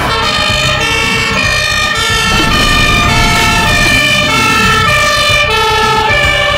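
German fire-engine two-tone siren (Martinshorn) sounding loudly, a high and a low tone in steady alternation.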